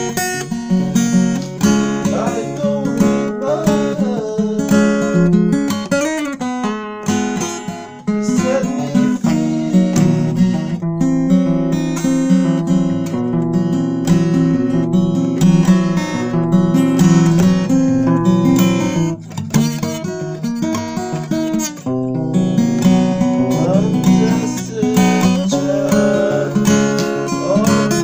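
Acoustic guitar music, strummed and picked, with the pitch sliding on some notes.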